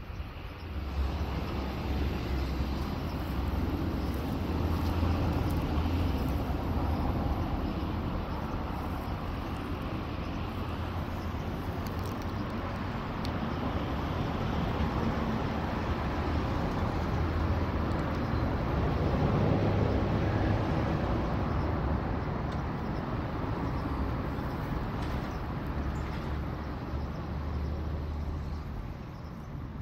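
Engine noise from a nearby vehicle: a steady low rumbling drone that builds about a second in, swells around the middle and fades near the end.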